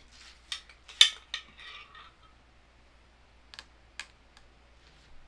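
Metal spoon clinking and scraping against a blender jar and a tall glass while scooping out thick avocado milk. There are a few sharp clinks, the loudest about a second in followed by a short scrape, and three more, lighter clinks later on.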